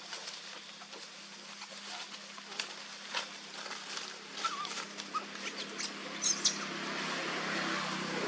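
Monkeys giving a few short, high squeaks, with scattered light clicks and rustles. A steady rumbling noise grows louder near the end.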